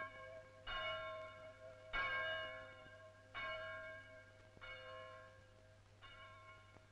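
A single church bell tolling as a knell: five strokes about a second and a half apart, each ringing on and dying away, the strokes growing fainter.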